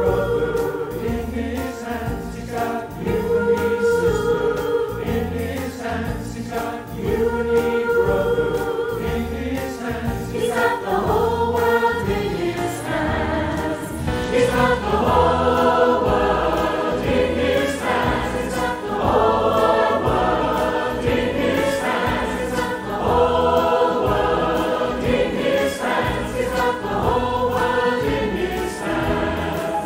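Mixed choir of men's and women's voices singing a song over a band with a steady beat: drum kit, piano and bass guitar. The singing grows fuller about halfway through.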